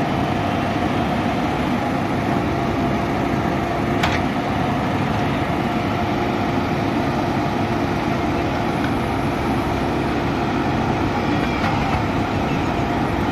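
JCB backhoe loader's diesel engine running steadily as the backhoe arm digs soil, with a single sharp knock about four seconds in.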